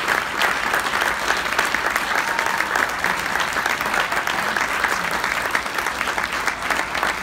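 Audience applauding, a steady crowd of hand claps.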